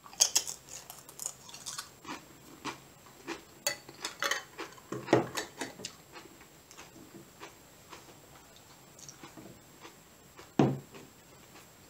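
Crunching of a seasoned corn tortilla chip being bitten and chewed close to the microphone: a dense run of sharp cracks for the first several seconds, thinning out to faint chewing. One loud dull thump near the end.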